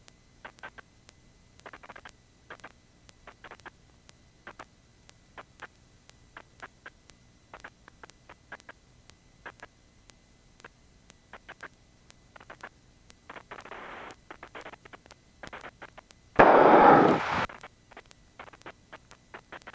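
Scattered clicks and crackles on a quiet aircraft headset intercom line, with a loud rush of noise for about a second near the end.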